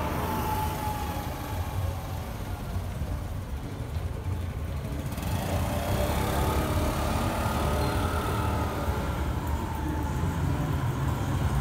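Street noise heard from a moving bicycle: a steady low rumble of traffic and riding, growing a little louder about halfway through as a van crosses just ahead.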